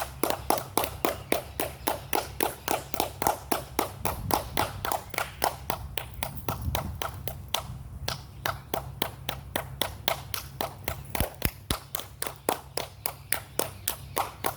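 Hand claps repeated steadily, about four a second, each answered by an echo off the stepped face of a Mayan pyramid. This is the clap-echo effect these temples are known for, which turns a clap into a bird-like chirp.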